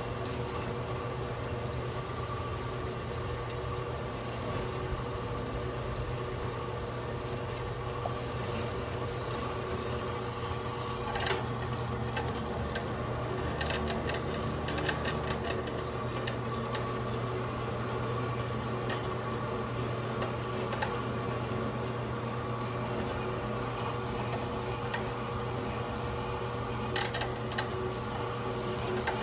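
Small electric metal-cutting band saw running steadily, its blade slowly cutting through a flat metal bar while water from a hose pours onto the cut as coolant. A few short sharp ticks come through about a third of the way in and again near the end.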